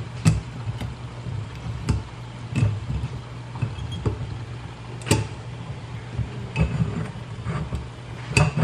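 Kitchen clatter from cooking: scattered, irregular clinks and knocks of utensils, dishes and pots over a steady low hum.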